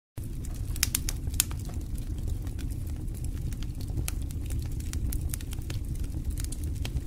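Outdoor background noise: a steady low rumble with a few sharp clicks, several of them about a second in.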